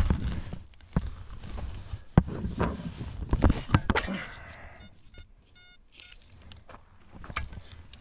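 Knocks and scrapes of a small hand pick working dry soil, with footsteps. About five seconds in comes a short run of clipped electronic beeps from a metal detector.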